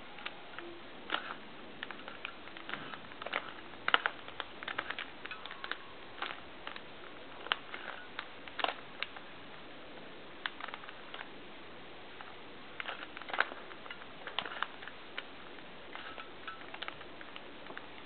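A 3x3 Rubik's cube, white plastic body with stickers, clicking and clacking as its layers are twisted by hand during a solve: quick irregular runs of turns with short pauses between them.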